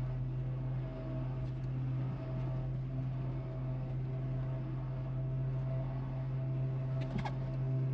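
Jeep Wrangler JK engine idling while its electric winch pulls the Jeep slowly forward through snow, a steady low drone heard from inside the cabin. A brief knock comes near the end.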